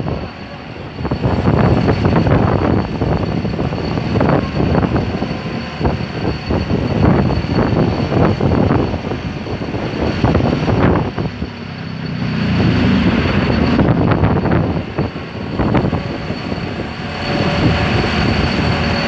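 Side-grip vibratory pile hammer (OMS OVR 60 SG) running as it drives a steel tube pile: a continuous heavy mechanical drone with many irregular knocks, easing briefly about twelve seconds in.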